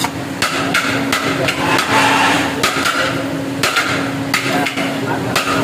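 Metal serving utensils clanking against metal cookware as biryani is dished out: a dozen or so quick, irregular strikes, some with a short metallic ring.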